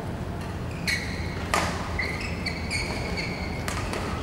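Badminton rally: shoes squeaking on the court mat in short high squeals, with sharp racket strikes on the shuttlecock, the loudest about one and a half seconds in and another pair near the end.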